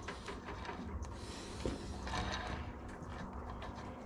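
Quiet workshop handling noises: scattered light clicks of metal parts being moved, with a short sliding scrape about a second in.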